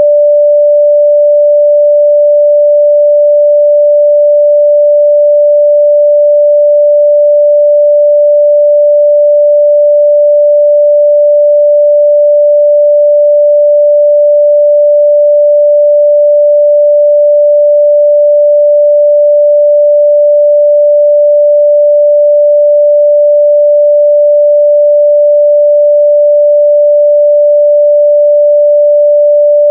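A steady, loud 588 Hz pure sine tone at one unchanging pitch, a mid-range test tone for checking speakers and headphones.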